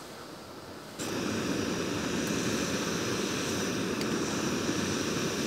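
Backpacking gas canister stove burning at full flame under a pot, with a steady rushing hiss. It comes in abruptly about a second in.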